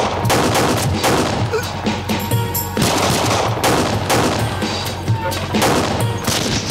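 Gunfire from pistols and a scoped rifle in a shootout, many shots in quick succession, over dramatic background music with a low pulse.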